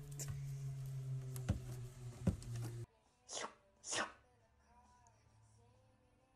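A steady low hum with background noise and a couple of sharp clicks, then, after a cut, a cat sneezing twice about half a second apart.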